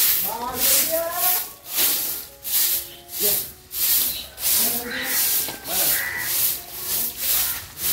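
Stiff stick broom sweeping dry leaves and grit on a bare earth path, with even swishing strokes about two a second.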